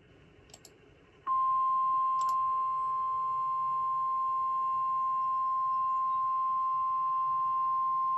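NOAA Weather Radio's 1050 Hz warning alarm tone, which signals a warning-level alert such as a tornado warning. After about a second of faint hiss, a single steady tone comes on sharply and holds unchanged.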